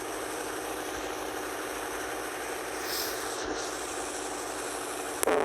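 Car engine idling steadily. Music starts suddenly just before the end.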